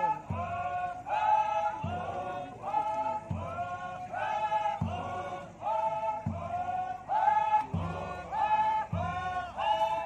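A large troupe of Naga folk dancers chanting a song in unison, in short repeated phrases with a low beat about every second and a half.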